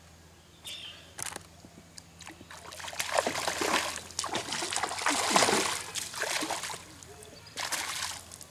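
A hooked fish thrashing at the water surface on the line, splashing hard in a long run through the middle and again briefly near the end, with two short sharp splashes about a second in.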